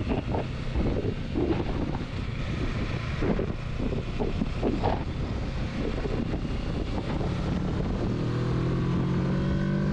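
Kawasaki Versys 650 motorcycle running at road speed, its engine under heavy wind buffeting on the microphone. A steady low tone comes in about two-thirds of the way through.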